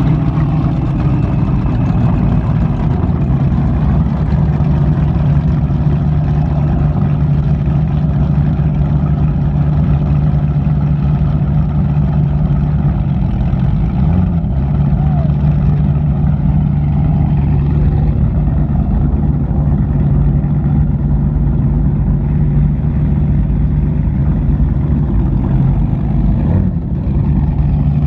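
Performance powerboat's engines idling with a steady low rumble as the boat moves slowly at dead-slow speed.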